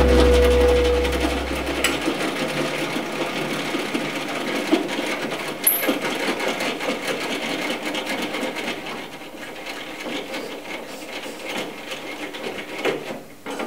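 Panel saw machinery: a low hum cuts off about two seconds in, leaving a rapid mechanical rattle that slowly dies away.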